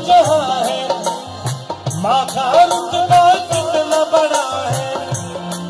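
Devotional folk music played loud: a wavering, ornamented melody line over a steady hand-drum beat with a rattling shaker.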